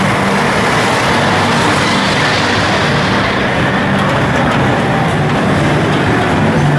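Steady, dense street traffic noise with no break.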